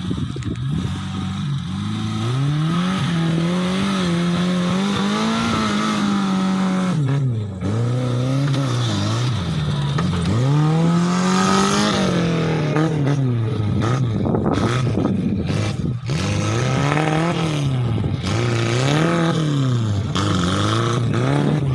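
Off-road vehicle's engine revving up and down again and again, its pitch swinging every second or two, with brief drops off the throttle about seven seconds in and near the middle.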